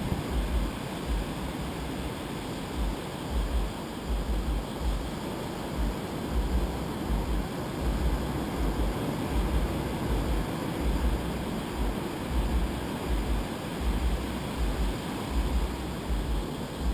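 Steady wash of surf on a sandy beach, with wind buffeting the microphone in irregular low rumbling gusts.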